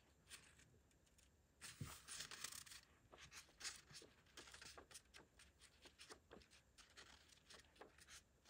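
Faint rustling of loose sheets of craft paper being leafed through by hand: a longer rustle about two seconds in, then a run of short paper flicks and crackles.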